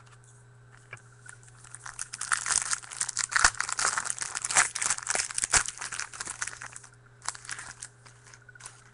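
A foil trading card pack of 2013 Topps Platinum Football being torn open and crinkled by hand: a dense run of crackling that starts about two seconds in and dies away about seven seconds in, with a couple of short crinkles near the end.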